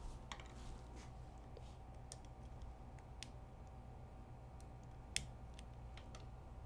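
Faint, sparse clicks and taps of a pointed tool on small plastic parts as the plastic screw covers are pried off a laptop screen bezel, with a low steady hum underneath; the sharpest click comes about five seconds in.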